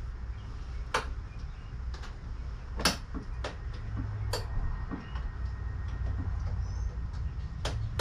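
A few sharp, irregular clicks and knocks from a Suzuki 6 hp outboard's clamp and tilt bracket as the motor is rocked and tilted on its wooden stand, over a steady low rumble.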